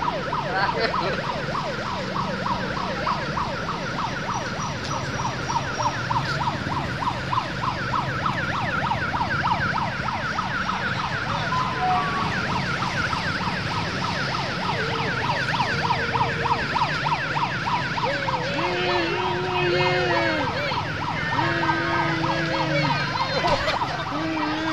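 A siren yelping in a fast, regular rise and fall, several sweeps a second, over steady street noise. Near the end it gives way to a few drawn-out, wavering tones, each about a second long.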